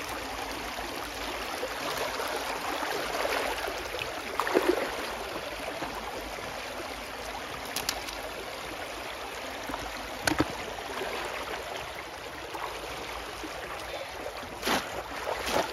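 Shallow water sloshing and splashing around a bamboo polo fish trap as hands grope inside it for fish, with several sharper splashes.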